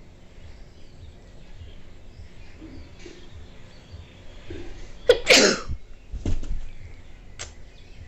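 A woman sneezes once, loudly and suddenly, about five seconds in, brought on by tickling the inside of her nostril. A fainter sound follows about a second later.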